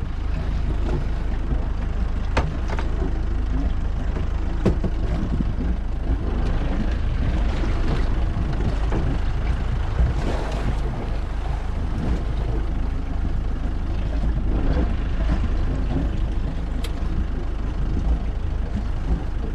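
Steady low rumble aboard a small fishing boat at sea, with a few sharp clicks.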